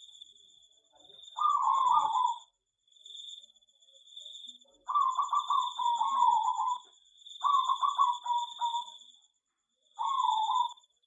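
Zebra doves (perkutut) cooing: four phrases of quick, stuttering notes, the two in the middle longer. A steady, pulsing high-pitched trill runs underneath.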